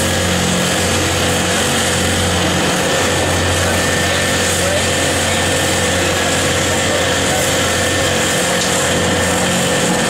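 Crane machinery working a loaded scrap grapple, running with a steady mechanical drone and a constant low hum.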